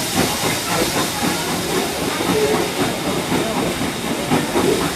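Steady rushing noise of a moving steam-hauled passenger train heard from aboard a coach: wheels on the rails and air rushing past, even and unbroken.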